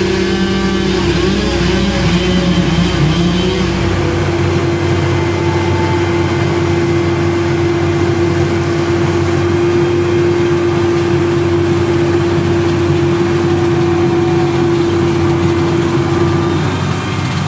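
Engine of heavy tree-removal machinery running at steady high revs, unsteady for the first few seconds, then holding one steady pitch that drops off shortly before the end.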